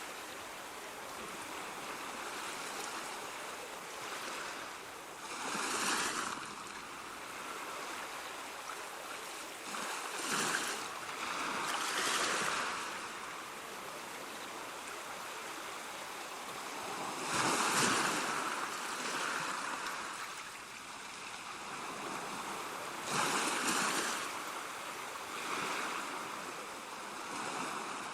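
Sea waves washing in on a shore: a continuous hiss of surf that swells into a louder breaking wave every few seconds, five times in all.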